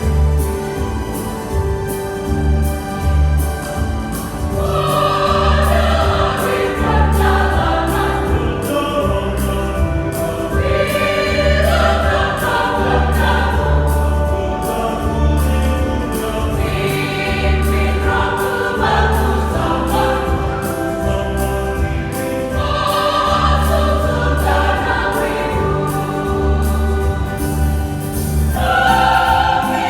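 Church choir singing a gospel hymn in parts over an instrumental accompaniment with a steady, repeating bass line; the voices come in about four seconds in, after a short instrumental passage.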